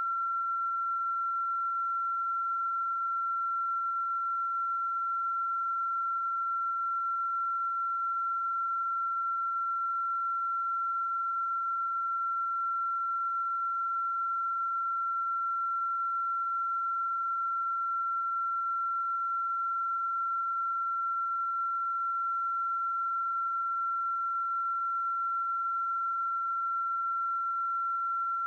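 A steady, unwavering electronic pure tone at about 1.3 kHz, a continuous beep that never changes in pitch or loudness.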